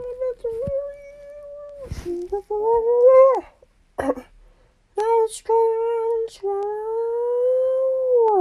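A high-pitched voice making long, held vocal notes, stepping and rising in pitch between them, with a few sharp clicks in the short gaps, and sliding down in pitch at the very end.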